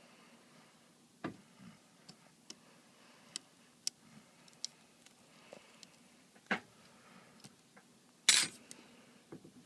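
Small scattered clicks and taps of hand tools and tiny parts being handled on a work surface during a tablet teardown, with one louder, brief rattling scrape near the end.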